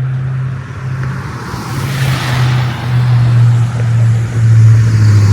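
Road traffic near a highway on-ramp: a car passes about two seconds in, over a steady low hum that grows louder toward the end.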